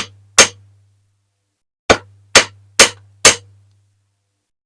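Small ball-peen hammer tapping a bent steel toy-car axle on a straight edge to straighten it: two sharp taps, a pause, then four more about half a second apart.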